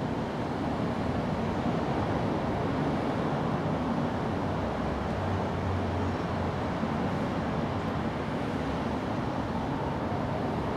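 Steady low rumble of road traffic, a constant outdoor background drone with a low hum that swells a little midway.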